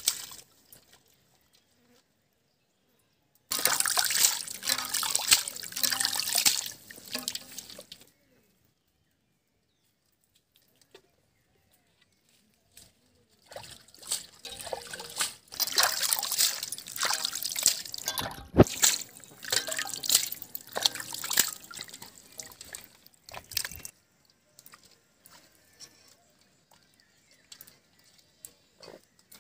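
Water splashing and dripping as hands rinse pieces of fish, in two stretches of splashing, about four seconds and then about ten seconds long, with quiet between and a few faint drips near the end.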